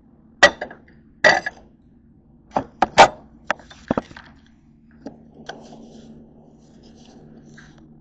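Dishes and utensils in a kitchen clinking and knocking: a quick run of sharp knocks and clinks over the first four seconds, one ringing briefly, then a few softer knocks. A faint steady low hum runs underneath.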